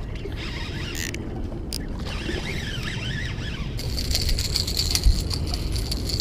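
Fishing reel clicking: a dense, rapid mechanical rattle starts about four seconds in, after a few single clicks, over a steady low background noise.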